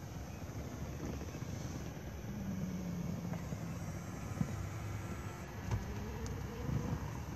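Audi A8 electric seat and footrest motors humming steadily while the button is held, with a low motor tone that shifts lower partway through and a couple of faint clicks.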